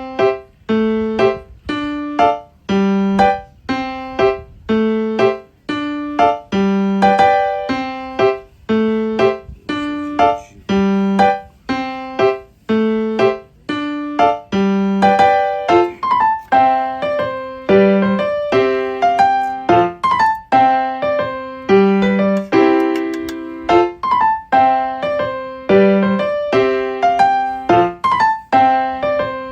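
Background music: a piano or electric-piano melody with a steady rhythm of notes, about two a second.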